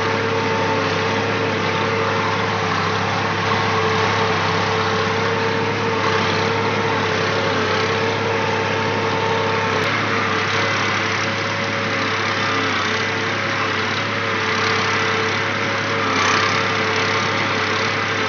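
Tractor diesel engine running steadily while the tractor pulls a mouldboard plough through dry soil.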